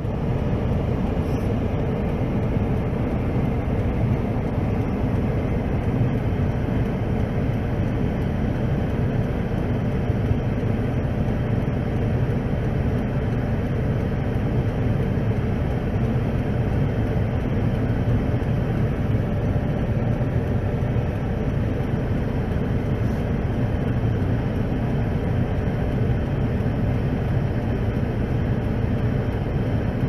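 Steady low rumble heard from inside a car in a blizzard whiteout: wind blowing against the vehicle mixed with its running and road noise.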